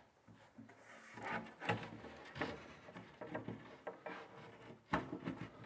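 Plywood kitchen sink base cabinet being shifted and worked down over plumbing pipes by hand: faint rubbing and bumping of wood, with one sharp knock near the end.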